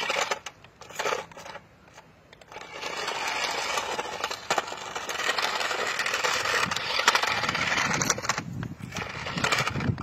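Small remote-control toy stunt car driving over rough asphalt: a gritty rattle from its plastic wheels and little motors. It comes in short bursts at first, then runs steadily for about six seconds from two and a half seconds in.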